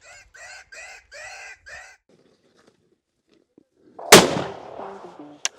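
A hunting rifle fires once, a little after four seconds in: a sharp crack with a trailing echo, the loudest sound here. Before it come five short, evenly spaced pitched calls.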